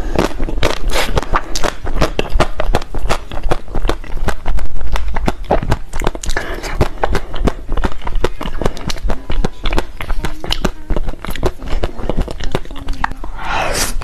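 Close-miked eating sounds: a person chewing pieces of decorated cake, a dense run of small mouth clicks and smacks.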